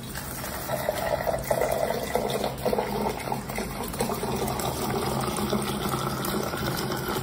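Water pouring steadily from the spout of an Electrolux countertop water purifier into a plastic cup, filling it, with a faint steady low hum underneath.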